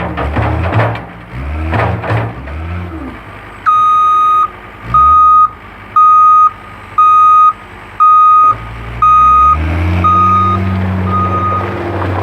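John Deere 326D skid steer's backup alarm beeping, about one beep a second, eight times, the last two fainter, over its diesel engine running; the skid steer is reversing. The engine rises in pitch near the end as it is throttled up.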